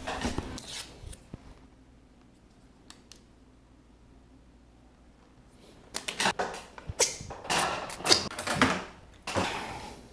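Rustling, crackling and clicking of plastic takeout food packaging being handled and opened, in a run of sharp crackles from about six seconds in after a quiet stretch.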